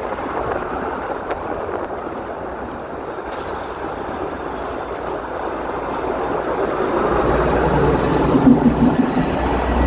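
Steady street traffic going by on a busy road. It grows louder over the last few seconds as a closer vehicle passes with a low rumble.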